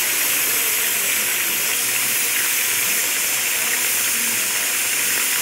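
Boiled pork ribs starting to fry in hot oil in a clay pot: a steady sizzling hiss as the still-wet meat sears and gives off steam.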